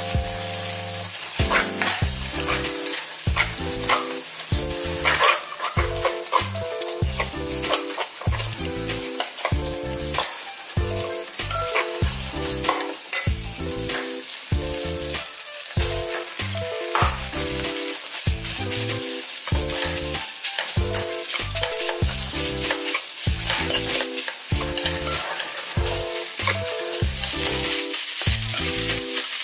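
Jjajang (black bean) sauce and eggs sizzling as they are stir-fried in a nonstick frying pan, a spatula stirring and scraping through them. Light background music with an evenly repeating pattern of notes plays underneath.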